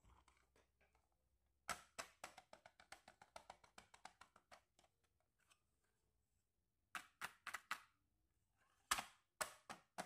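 Hard plastic toy makeup pieces clicking and tapping together as they are handled: a quick run of light clicks for about three seconds, then two short groups of sharper clicks near the end.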